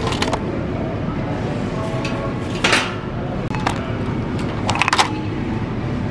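Glass spice jars clinking and tapping as they are taken from a store shelf and handled: several short clinks, with a quick run of them about five seconds in, over a steady background din.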